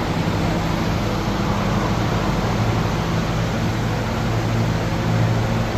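Walk-in refrigerator evaporator fans running: a steady rush of air with a low hum, the hum shifting lower about three seconds in.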